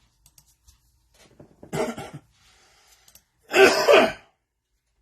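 A person coughing twice, the second cough the louder.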